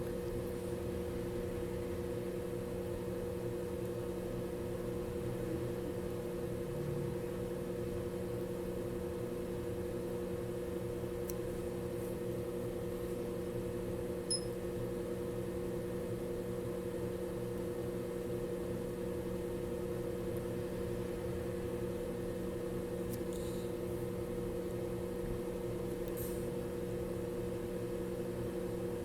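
Steady machine hum, like a small fan running, with a few faint small clicks.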